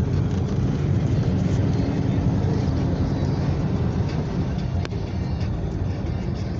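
Ford Ranger pickup on the move: a steady low engine and road rumble heard from inside the cab, with a single sharp click about five seconds in.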